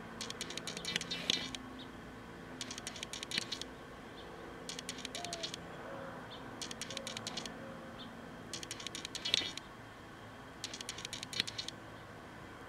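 Makeup sponge dabbing concealer onto the skin, in short bursts of quick, soft taps about every two seconds, over a faint steady hum.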